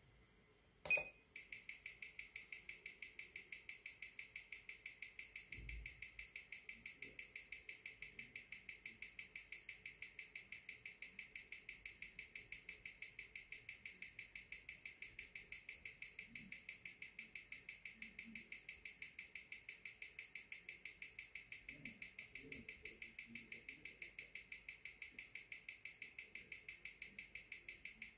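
A sharp click about a second in, then the fast, even ticking of a Seiko 6R15 automatic movement beating at 21,600 per hour (six ticks a second), picked up and played through a timegrapher's speaker. The watch is running at a low balance amplitude of about 220°, which the uploader blames on bad factory lubrication.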